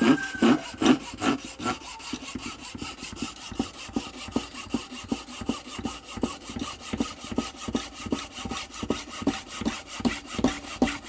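Japanese pull saw cutting a slot into the end of a wooden stick handle clamped in a vise, in quick, even strokes, a little louder in the first second.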